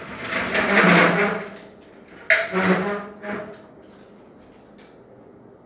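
Aluminium stepladder being moved and set up: a scraping clatter, then a sharp metal clank a little over two seconds in, with short ringing after it.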